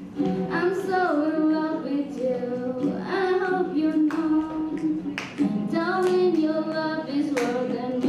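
Two women singing a song together with acoustic guitar accompaniment.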